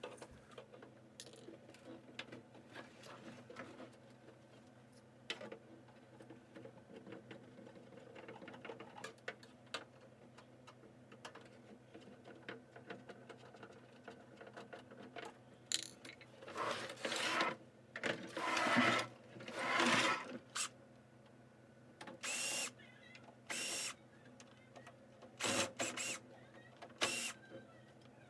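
Hands working on a disassembled projector: scattered small clicks and taps of plastic and metal parts, then a run of louder scraping and rattling handling noises about two-thirds of the way in and a few short ones near the end.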